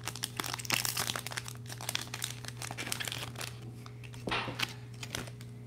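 Foil wrapper of a Topps baseball card pack being torn open and crinkled by hand, with a dense run of crackles through the first half and a brief louder burst about four seconds in.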